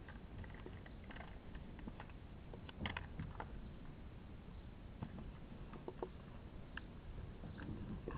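A puppy mouthing and pushing a plastic plant pot across grass: irregular light taps, knocks and scrapes of the plastic, with a brief cluster of knocks about three seconds in, over a low steady rumble.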